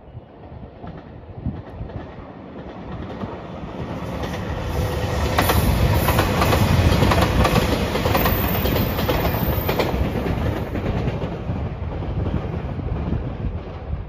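JR Shikoku 2700 series diesel limited express train passing close by: its rumble and engine noise build up, are loudest around the middle with wheels clicking over the rail joints, then fade as it moves away.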